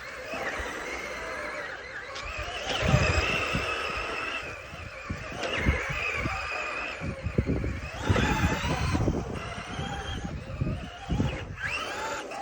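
Electric RC car motor whining in several bursts, its pitch rising each time the car speeds up and then holding steady, over irregular low rumbling and knocks.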